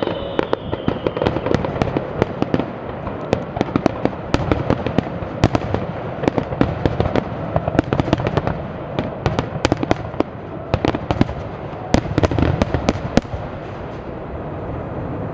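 Fireworks finale barrage: a rapid salvo of bangs and cracks, many a second, overlapping into a continuous rumble. The bangs stop near the end, leaving a steady rumble.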